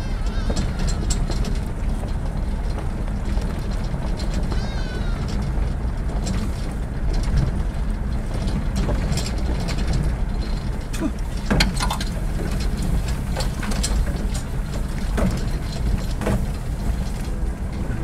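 A vehicle driving, heard as a steady low rumble. Scattered high chirps and a few sharp clicks and short calls sound over it.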